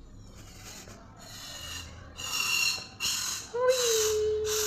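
Breath blown in a series of about five hissy puffs, growing louder, into a blob of clear slime to inflate it into a bubble. A steady held tone starts about three and a half seconds in.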